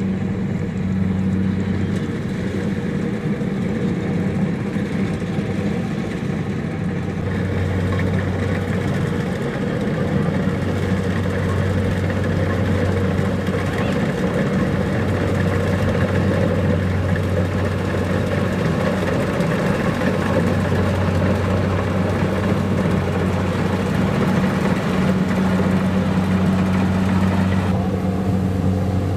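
Kubota DC-70 Plus rice combine harvester's diesel engine running with a steady drone.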